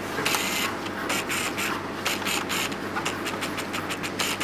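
A drawing tool scratching on paper in a quick run of short strokes, about five a second, as an outline is sketched. A steady low room hum runs underneath.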